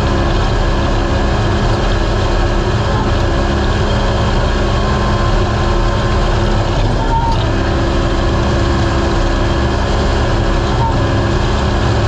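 Race UTV's engine running hard at steady high revs, loud and continuous, with a thick wash of wind and rough-ground noise. The engine note dips briefly about seven seconds in, then picks back up.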